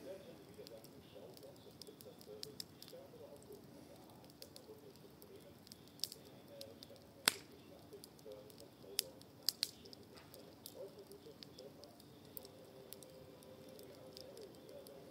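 Wood campfire crackling faintly, with scattered sharp pops and snaps; the loudest pop comes about seven seconds in, with a few more shortly after.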